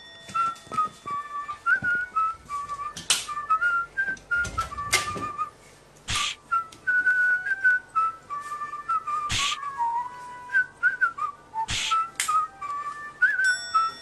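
A whistled tune, played as background music, wandering up and down in small steps. About five short, sharp noises cut through it.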